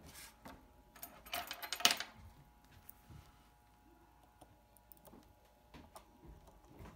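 Small metallic clicks and taps from fingers handling a watch movement clamped in a metal movement holder, with a brief scraping rattle about a second in.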